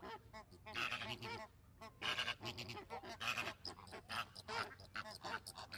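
A flock of flamingos calling: many short honking calls overlapping one another in quick succession.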